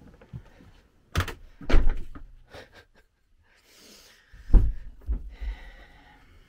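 Several thumps and knocks inside a motorhome's cabin as someone moves through it, sharp bangs about a second in, near two seconds and about four and a half seconds in.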